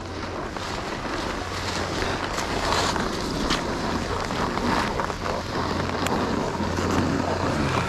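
Wind buffeting the microphone, with the steady hiss and scrape of a snowboard sliding over snow.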